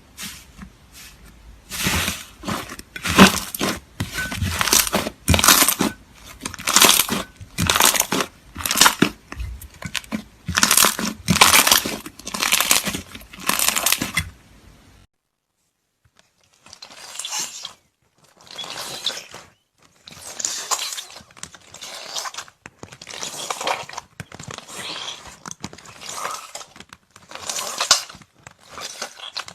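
Slime being squeezed and pressed by hand, crackling and popping in repeated crunchy squishes a little over one a second. About halfway through the sound cuts out for a moment, then returns softer and slower.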